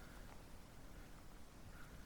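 Near silence: faint steady hiss with a low rumble underneath.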